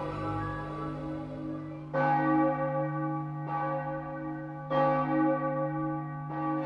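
Bells tolling: four strikes, the first about two seconds in and the rest about a second and a half apart, each ringing on and slowly fading into the next, over a steady low hum.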